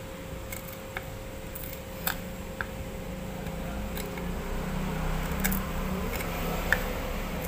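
Kitchen knife mincing celery leaves on a wooden cutting board: light, irregular taps of the blade on the board, over a steady low hum.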